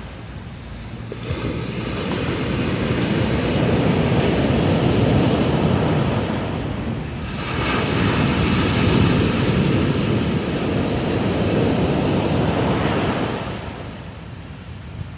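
Sea waves washing in and out, the surf swelling in two long surges and fading back near the end.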